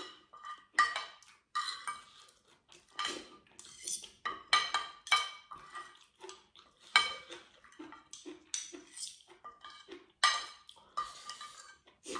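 Metal spoon and fork scraping and clinking against a ceramic plate while gathering up food: a quick, irregular run of short scrapes, some ringing briefly.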